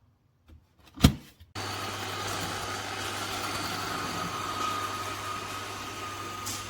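Click about a second in, then a robot vacuum's suction motor switches on abruptly and runs steadily, a hissing rush with a high whine over a low hum.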